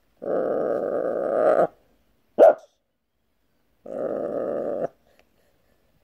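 Blue-and-gold macaw growling twice, the first growl about a second and a half long and the second about a second, with one short sharp sound between them.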